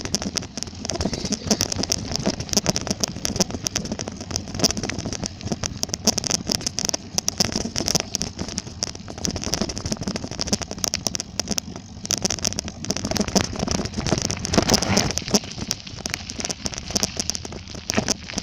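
Bicycle being ridden along, rattling and clicking densely and without a break.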